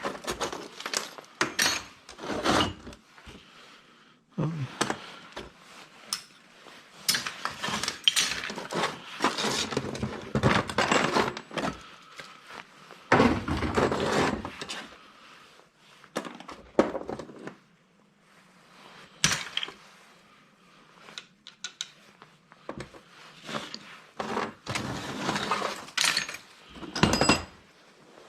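Irregular clanking and clinking of small pieces of scrap metal being handled, knocked together and tossed into a box while copper is sorted.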